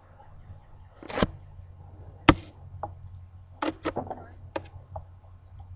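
Several sharp knocks and taps of a knife and a snake carcass being handled on a hard work surface while the snake is skinned. The knocks are irregular, and the loudest comes a little after two seconds in. A steady low hum runs underneath.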